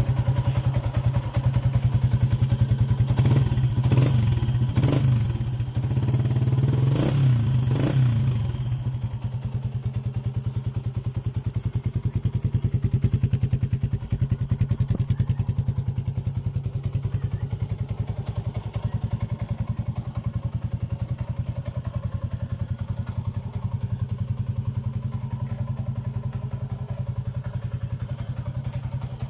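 Yamaha Y15ZR's 150 cc single-cylinder four-stroke engine running through a YYPang 28 mm aftermarket exhaust: several quick throttle blips between about three and eight seconds in, then a steady idle with an even beat.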